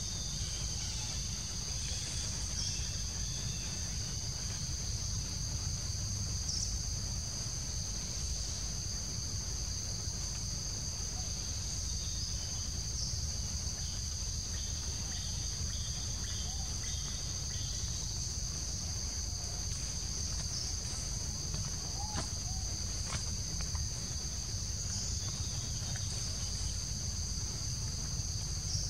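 Steady chorus of insects trilling on two high pitches without a break, over a constant low rumble, with a few faint clicks near the end.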